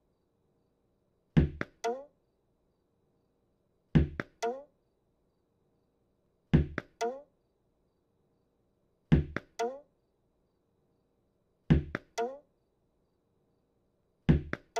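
A tennis ball thumping against a wall, six times about every two and a half seconds. Each time a loud knock is followed about half a second later by a lighter knock that drops quickly in pitch.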